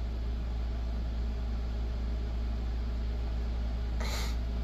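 Steady low electrical hum with an even hiss underneath, and a short soft hiss about four seconds in.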